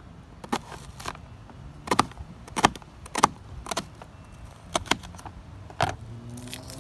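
Kitchen knife slicing a shallot on a plastic cutting board: a series of sharp taps, each cut ending as the blade hits the board, coming unevenly about once or twice a second.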